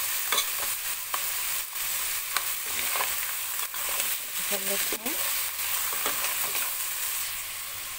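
Crabs and shrimp sizzling in hot oil in a pot. A slotted spoon stirs them, and the shells scrape and click against the pot.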